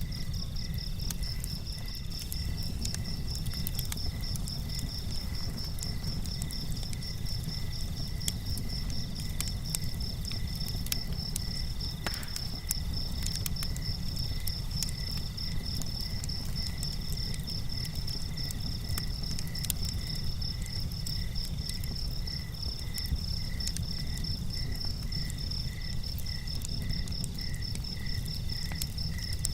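Night insects, crickets or similar, chirping in steady, repeating pulses at several pitches. Under them runs a steady low rumble, with scattered light ticks.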